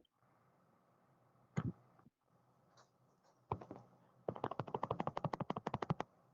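Computer keyboard keys being pressed: a couple of single clicks, then a fast run of about a dozen key clicks a second for nearly two seconds, like keys being mashed during play.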